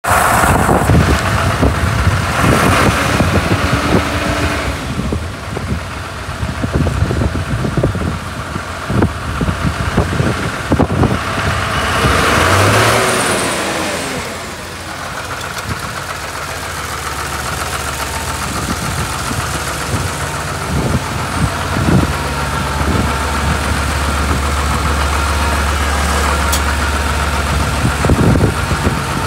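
Lamborghini Champion 150 tractor's diesel engine running, with a brief rise in revs about halfway through, then idling steadily.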